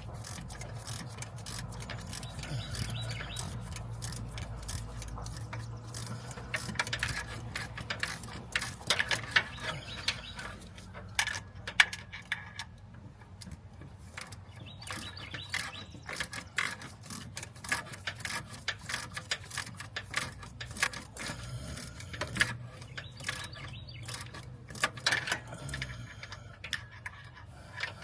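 Hand ratchet wrench clicking in irregular runs, with metal tool clicks and knocks, against a low steady hum that fades after about five seconds.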